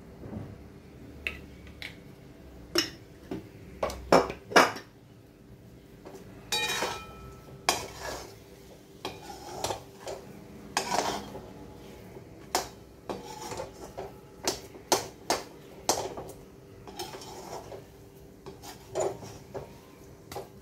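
A perforated metal slotted spoon scraping and knocking against a metal kadhai while stirring thick suji and banana halwa. The sound is a run of irregular clinks and scrapes over a faint steady hum.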